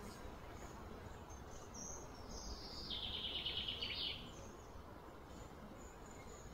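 Faint steady outdoor background with a high-pitched animal call starting about two seconds in: a tone that slides downward, then turns into a rapid buzzing trill for about a second before it stops.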